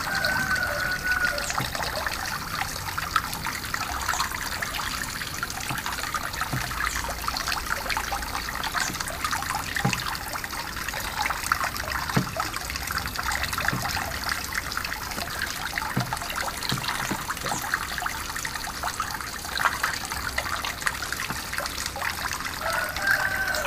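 Filtered water from a small pond pump trickling steadily back into a garden pond.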